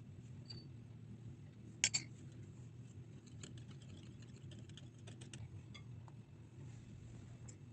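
Light clicks and taps of small utensils being handled in a miniature kitchen: two sharp clicks about two seconds in, then a run of lighter ticks, over a steady low hum.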